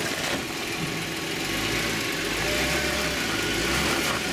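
Jeep engine running at low revs as it crawls slowly up a rock, with a low rumble that builds about a second and a half in.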